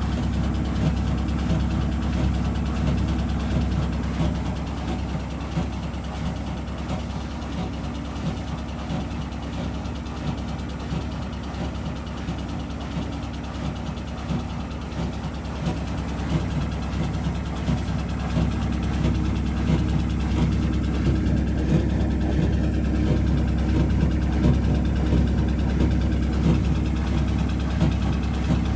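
Whirlpool 5 kg washing machine on its final spin: a steady drum hum with fast, continuous rattling and knocking from a badly unbalanced load. It eases a little midway, then grows louder again.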